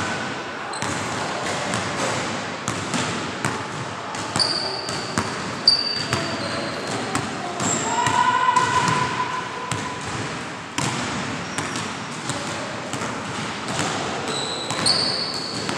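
Basketball dribbled on a hardwood gym floor, irregular bounces echoing in the hall, with sneakers squeaking on the floor a few times.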